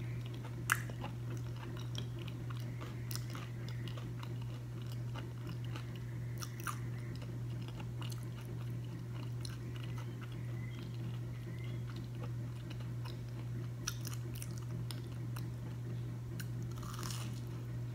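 A person chewing breaded, fried avocado slices with the mouth close to the microphone: scattered small crisp crunches and mouth clicks over a steady low hum.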